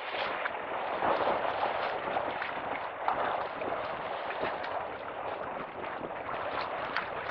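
Wind gusting across the microphone over choppy lake water lapping and splashing at the shore, with small irregular splashes and clicks.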